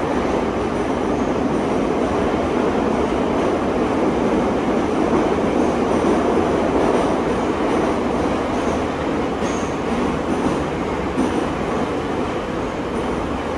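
81-718/719 metro train running, a steady rumble of wheels on the rails that swells slightly mid-way.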